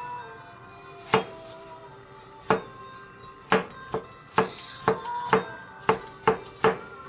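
Chef's knife slicing a mushroom on a cutting board: about ten sharp knocks of the blade striking the board, at first a second or more apart, then coming faster, under steady background music.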